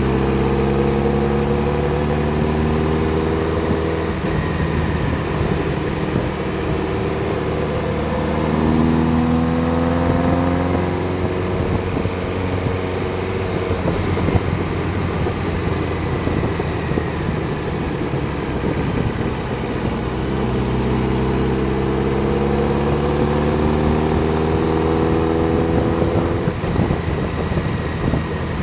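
Motorcycle engine running on the move, its pitch rising several times as it accelerates, with stretches where a rushing wind noise covers the engine.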